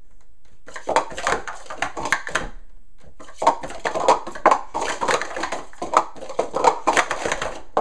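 Plastic sport-stacking cups clattering rapidly as they are upstacked and downstacked, in a fast run of sharp clicks that starts about a second in and breaks off briefly near the middle.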